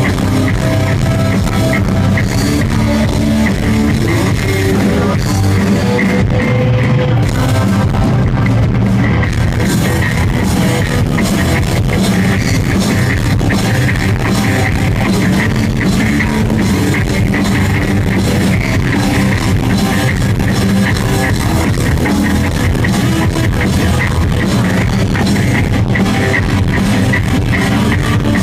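Live rock band playing loud and without a break: electric guitar, bass guitar and a drum kit.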